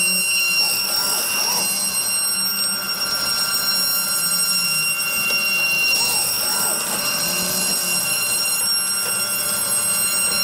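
CNC router spindle running with a steady high-pitched whine while its bit cuts a groove in pine, and the axis stepper motors giving a lower hum that glides up and down in pitch every couple of seconds as the machine moves.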